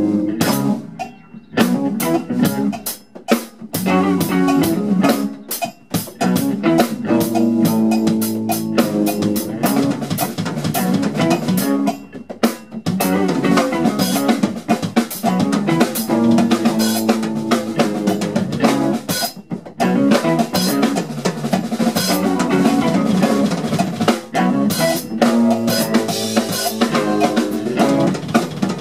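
Live instrumental funk band playing: drum kit with snare, rimshot and kick hits driving the groove under electric guitars and bass, with the band briefly dropping out a few times.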